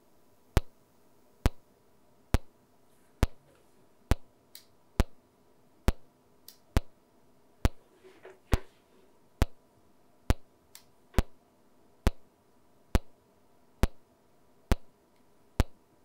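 Test pulses from a pulse generator, passed through a Radial Twin ISO line-level audio transformer at a turned-down drive level: a sharp click a little more than once a second, evenly spaced, with a few fainter clicks in between.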